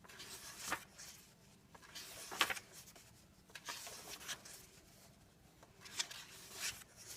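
Paper pages of a coloring book being handled and turned: faint rustling and rubbing with a few soft clicks, the sharpest about two and a half seconds in.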